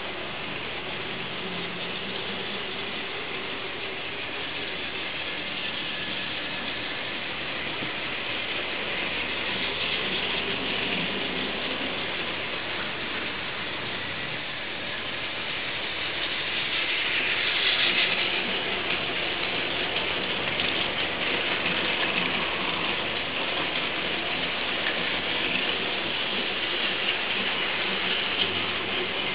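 Plarail battery-powered toy trains running on plastic track: the motors and plastic gearboxes keep up a steady whirring rattle, louder a little past the middle.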